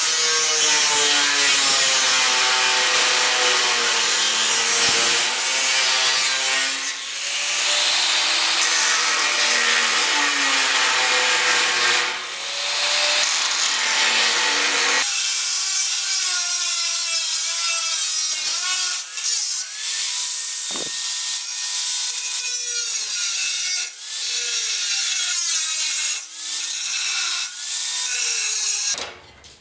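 A cut-off wheel (zip cut) slicing through sheet steel. The motor's whine sags and recovers as the wheel bites, with short let-ups, and the sound stops abruptly near the end.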